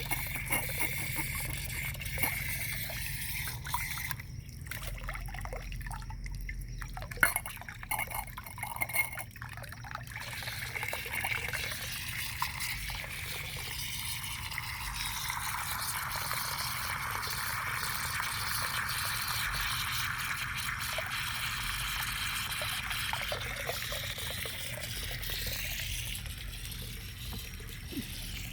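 Water trickling and dripping, with irregular small splashes and clicks in the first ten seconds and then a steady trickle, over a constant low hum.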